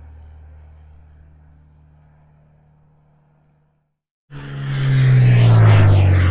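Low-flying airplane overhead: one pass's rumble fades away to silence, then about four seconds in a second pass cuts in suddenly and swells loud, its engine tones sliding down in pitch as it passes over.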